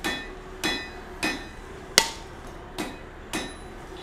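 Hammer tapping a hand punch set on a red-hot steel bar on the anvil: six separate strikes a little over half a second apart, each with a short metallic ring, the loudest about two seconds in. These are the setting taps that mark the eye's position before the punch is driven in.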